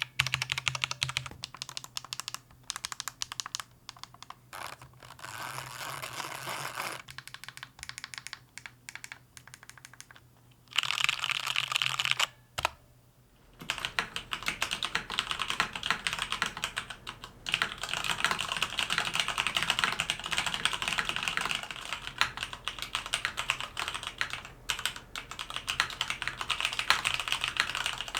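Typing on a Mountain Everest Max mechanical keyboard with Cherry MX Red linear switches: a fast, steady stream of key clicks. After a short pause near the middle, the typing is heard through a camera-mounted microphone, with a faint hum underneath.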